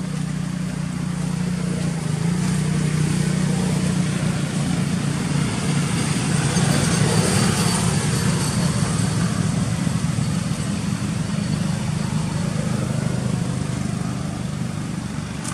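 Engine of a passing motor vehicle, a steady low drone that swells to its loudest about halfway through and then slowly fades.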